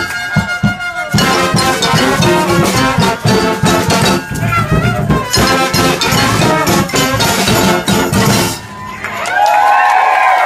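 Brass band of sousaphones, trombones and trumpets with drums playing loud, ending about eight and a half seconds in; then crowd whoops and cheers with gliding, falling voices.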